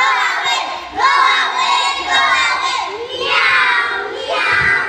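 A group of young children chanting a Swahili school poem (shairi) loudly in unison, phrase after phrase with short breaks between.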